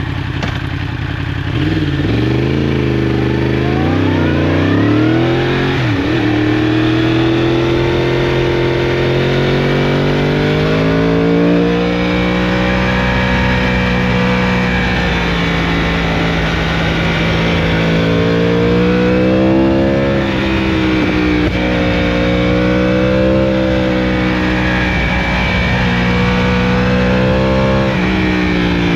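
Yamaha R1 crossplane inline-four running through an Akrapovic exhaust while being ridden. The revs rise and fall several times in the first six seconds, then the engine holds a fairly steady pitch with slow swells and dips.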